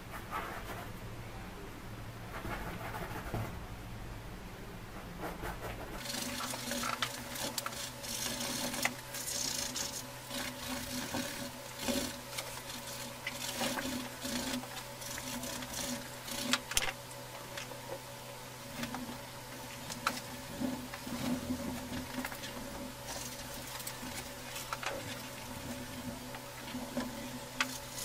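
Bristle paintbrush scratching and scrubbing oil paint onto a canvas in many short, irregular strokes over a steady low hum. The scratching gets busier about six seconds in.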